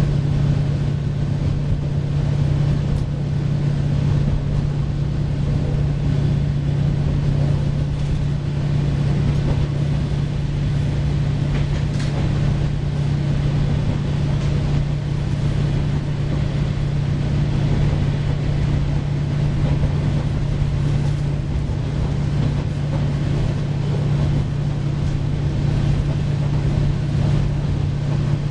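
JR Shikoku KiHa 40 series diesel railcar running between stations, heard from inside the car: a steady engine drone holding one pitch over the rumble of wheels on track, with a few faint clicks.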